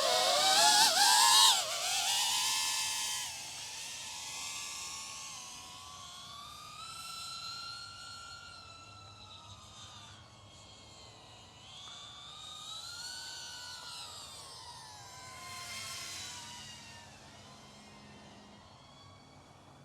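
Motors and propellers of an iFlight ProTek35HD, a 3.5-inch ducted cinewhoop FPV quadcopter, whining as it takes off. The pitch rises sharply and it is loudest in the first second or two. The whine then grows quieter, gliding up and down with the throttle as the drone flies away.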